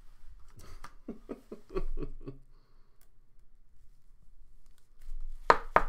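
Hands handling a trading card and a clear plastic card holder, ending in a few sharp plastic clicks and taps. A brief low chuckle sounds about a second in.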